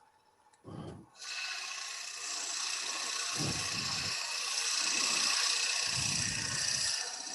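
A 1.5-inch drill bit boring a half-inch-deep recess into a wooden pepper grinder blank turning on the lathe: a steady hissing cut that starts about a second in, with a few short low rumbles beneath it.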